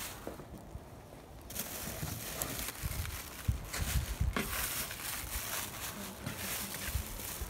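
Plastic grocery bags crinkling and rustling as they are handled and set down on a carpet, with a sharp knock about four seconds in.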